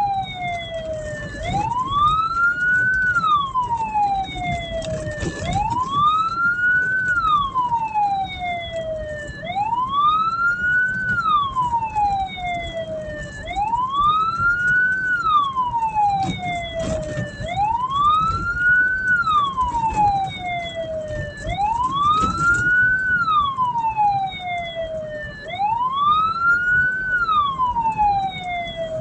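Hearse siren wailing continuously, each cycle a quick rise in pitch followed by a slower fall, about one cycle every four seconds, over the low rumble of the vehicle on the road.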